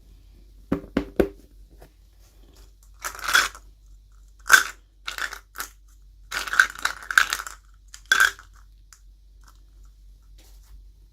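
Small plastic packaging being handled and opened by hand: a few sharp clicks about a second in, then a string of short, scratchy rustles.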